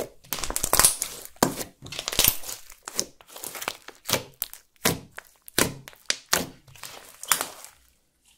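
Hands kneading and squeezing thick gold glitter clear slime, giving an irregular run of short sticky crackles and squelches, one or two loud ones a second. The sounds stop just before the end as the hands let go.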